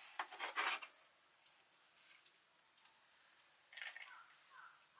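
Steel knife blade scraping shredded cabbage across a wooden chopping block in one short burst, the loudest sound. About four seconds in, the cabbage is pushed off the blade into a clay bowl with a softer, squeaky scrape.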